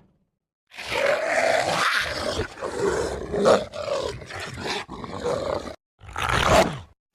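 Werewolf sound effect: a long, wavering growl of about five seconds after a short silence, then a second, shorter growl near the end.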